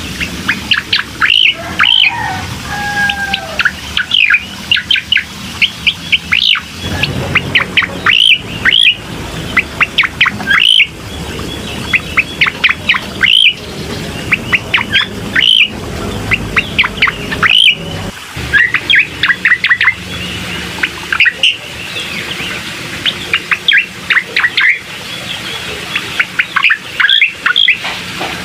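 Recorded song of a cucak koreng (striated grassbird): loud, sharp high notes that sweep downward, repeated in quick runs of a few at a time, used as a lure to set a caged bird singing.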